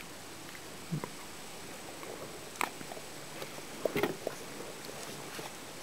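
Two dogs biting and mouthing an apple, giving a few scattered crunches and knocks, with a cluster of them about four seconds in.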